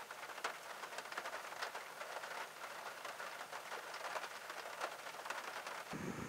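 Rain falling on a car, heard from inside the cabin: a dense, irregular patter of small drop taps over a soft hiss. Just before the end it cuts to a low steady rumble.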